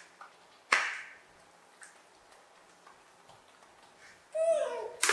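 Dishes clacking sharply on the floor as macaques eat from them, a knock with a short ring about a second in and again at the very end. Just before the last clack comes a short call that falls in pitch.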